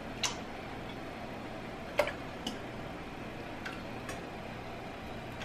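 Sparse light clicks and ticks of kitchen things being handled, over a steady low hiss. There are about five clicks, and the sharpest comes about two seconds in.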